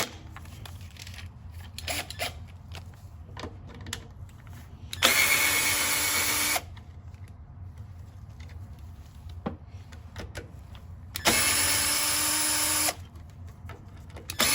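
A power drill driving a socket to back out the mower's 5/16 air-box bolts. It runs in two short, steady bursts of about a second and a half each and starts a third at the end, with small clicks and handling noises between.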